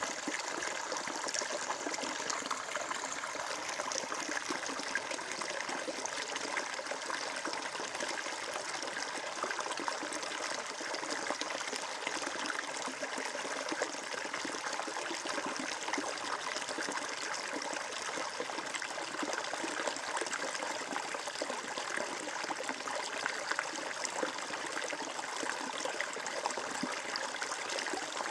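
Water flowing and trickling steadily, a stream running over stones.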